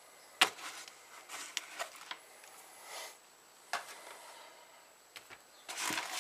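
Hands handling a Cordura fabric organizer bag: quiet rustling of the fabric, a sharp tap about half a second in and a smaller one near four seconds, and rubbing of the fabric that grows louder near the end.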